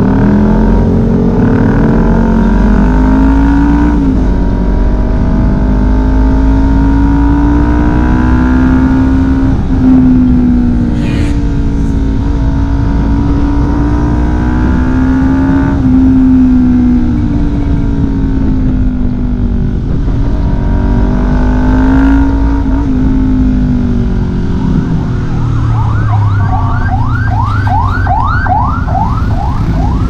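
Honda CBR250RR parallel-twin engine through a LeoVince LV One exhaust with its dB killer fitted, heard from on board while riding and accelerating. The engine note climbs and then drops sharply at each gear change, several times over. Near the end comes a quick run of rising high-pitched sweeps, about two a second.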